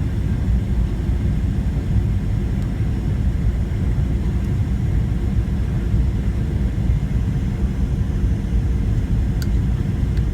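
Steady low rumble of a Boeing 737-700 airliner, with no rise or fall in level and a faint steady hum above it.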